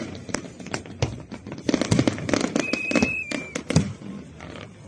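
Aerial fireworks display bursting in quick succession: a dense run of sharp bangs and crackles, with a short high whistle held for just under a second about two and a half seconds in.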